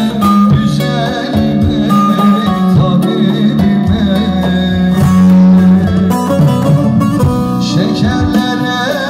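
Live amplified Turkish folk song (türkü): a male voice singing over bağlama and band through the PA, as heard from within the crowd.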